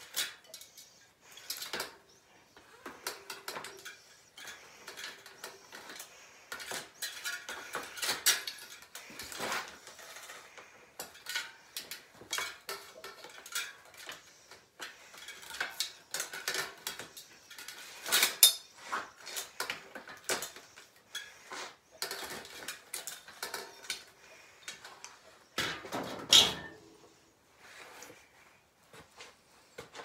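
Metal bicycle parts and tools clinking and clattering in irregular knocks as a bike is worked on by hand, with two louder clanks, one past the middle and one near the end.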